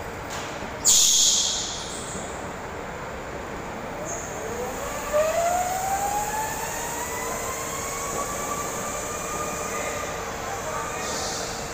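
A go-kart's motor whines, rising in pitch as the kart speeds away and then holding steady, over a constant hum. A brief loud hiss comes about a second in.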